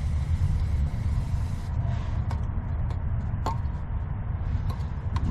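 A few light, sharp clicks of small starter parts being handled, over a steady low background rumble.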